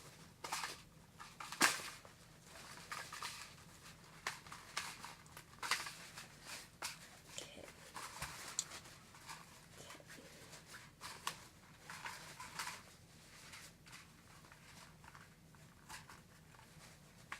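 Handling noises from a Nerf Rival tactical vest and its pouches: scattered rustling swishes and sharp clicks as the gear is moved and adjusted.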